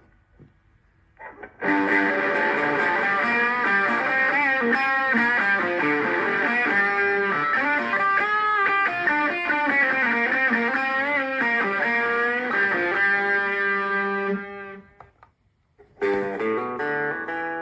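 Electric guitar played through a Zoom G1X Four multi-effects pedal's preset patch: a phrase of notes with wavering, bent pitches that starts after a short silence. It stops near the end, and after a brief gap playing starts again with a different tone.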